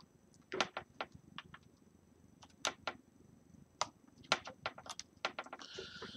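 Scattered small sharp clicks and ticks of a fingertip and small tool picking at a rubber screw cover on the plastic LCD bezel of an HP 2000 laptop, with a brief rustling scrape near the end.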